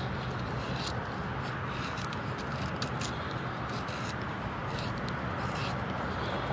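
Knife blade shaving curls off a wooden stick to make a feather stick, in repeated short scrapes about once a second, over a steady low hum.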